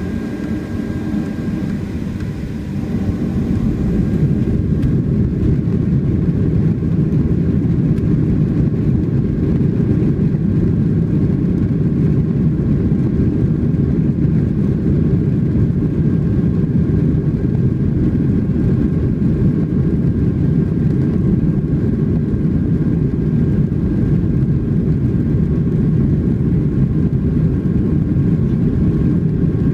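Boeing 737-800 heard from inside the cabin while taxiing: a steady low rumble of its CFM56 turbofan engines, growing louder about three seconds in and then holding level.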